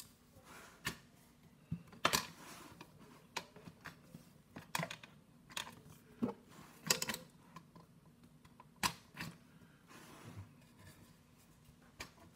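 Irregular light clicks and taps of metal PCB holders and a small circuit board being handled and fitted together on a bench mat, about a dozen in all and spread unevenly.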